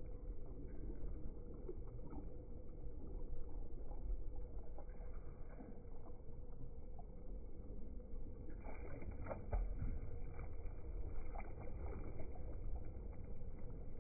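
Water lapping and splashing around a kayak as it is paddled, with sharper paddle splashes from past the middle on.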